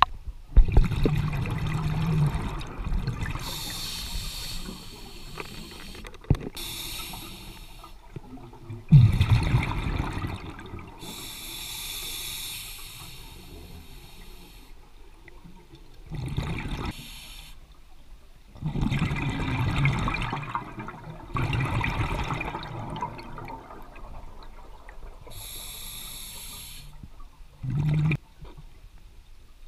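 Scuba diver breathing through a regulator underwater. Each breath brings a noisy rush and a gush of exhaled bubbles, repeating every few seconds.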